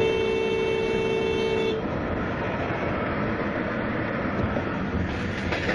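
A car horn gives one held blast of just under two seconds, two close tones sounding together. Steady road and engine noise from a moving car follows, heard from inside the car.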